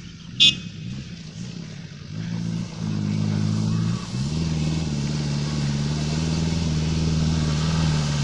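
Small off-road 4x4 jeep's engine pulling through a muddy track, getting louder as it approaches, with its note changing pitch about four seconds in. A brief, sharp high-pitched sound stands out about half a second in.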